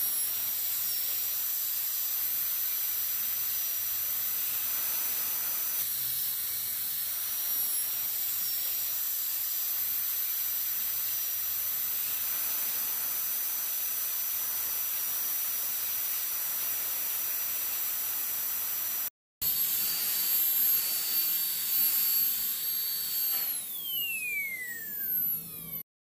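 High-speed dental handpiece with a bur running, a steady high whine with hiss. It cuts out briefly about 19 seconds in, starts again, and a few seconds before the end its whine glides down as it spins to a stop.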